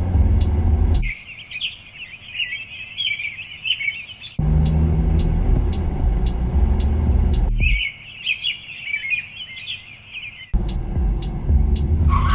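Sharp cuts back and forth between a vehicle's low rumble, with a steady ticking about twice a second, and birds chirping over a much quieter background. Each part lasts about three seconds, and the rumble is the louder.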